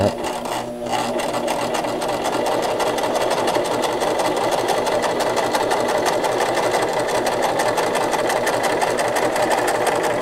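Brother LS-2125 electric sewing machine running steadily as it stitches a seam, the needle and feed going in a fast, even rhythm at a moderate speed.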